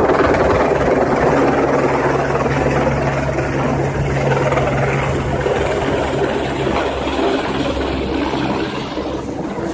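Light single-rotor helicopter flying low overhead: a steady rotor and turbine-engine drone that eases slightly near the end.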